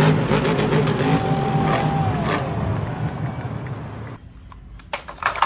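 Monster truck engine running loud, its pitch gliding as it revs, then trailing off after about four seconds.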